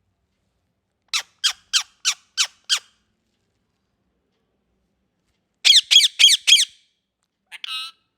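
Indian ring-necked parakeet squawking: six short, sharp calls at about three a second, then a quicker, louder burst of four a few seconds later, and one shorter, lower call near the end.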